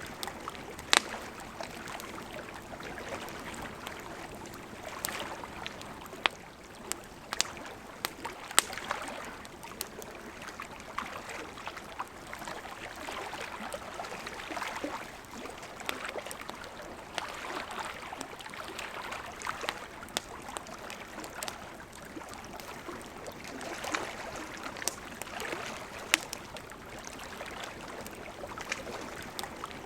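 Campfire crackling, with sharp pops now and then, over a steady lapping of lake water.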